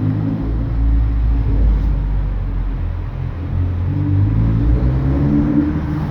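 2016 Ford Focus ST's turbocharged 2.0-litre four-cylinder running at low revs through a catless downpipe and 3-inch cat-back exhaust, a deep exhaust drone that shifts up and down in pitch a few times.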